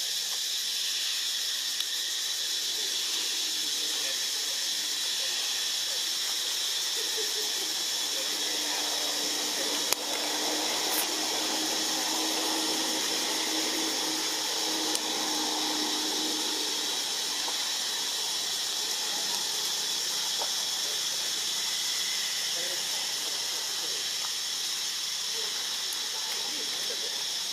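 Steady, high-pitched insect chorus, with a faint low drone in the middle and a few small clicks.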